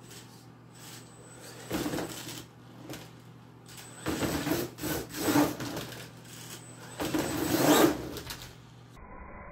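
Venom Mini Giant electric RC monster truck driving in three bursts of tyre and drivetrain noise across a tiled floor. The loudest burst comes near the end, as it runs up onto a cardboard box ramp.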